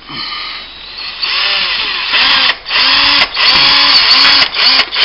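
Screw gun pre-drilling into a plaster cornice, the motor whirring in a string of bursts as the trigger is squeezed and eased, its pitch rising and falling with each burst. The bit is not catching anything solid behind the plaster.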